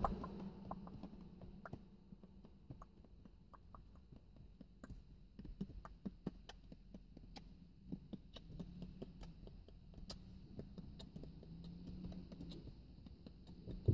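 Quiet inside a parked car: faint, scattered small clicks and taps over a low hum.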